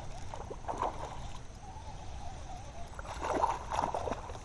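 A hooked bass splashing at the pond's surface as it is reeled in, in scattered bursts, the loudest splashing from about three seconds in.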